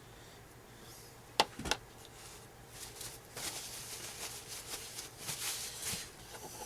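Two sharp clicks about a second and a half in as a small ball bearing is popped into an RC truck's steering hub, then a few seconds of light scraping and rustling as the greased parts are handled.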